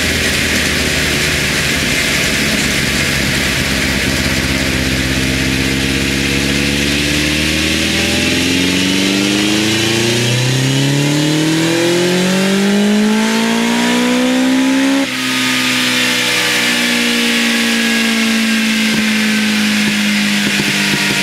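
Honda X-4's inline-four, breathing through 41 mm Keihin FCR carburettors and a Wyvern aftermarket exhaust, on a full-throttle dyno power run: the revs climb steadily for about fifteen seconds. Then the throttle is shut and the engine winds down slowly with the rear wheel still spinning on the roller.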